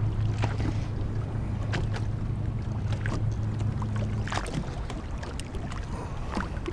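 Small fishing boat trolling slowly, with a steady low hum from the trolling motor that stops about four seconds in, and water slapping and splashing against the hull.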